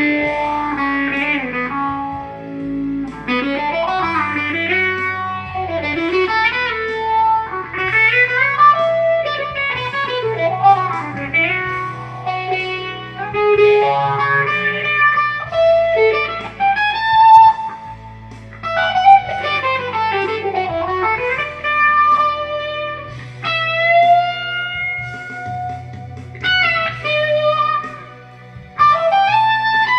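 Electric guitar playing a lead melody with string bends and long held notes, over a backing track with steady sustained bass notes.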